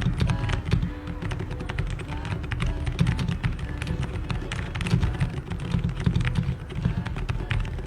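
Typing on a mechanical keyboard fitted with dye-sublimation PBT Cherry-profile keycaps: a quick, continuous run of key clicks over background music.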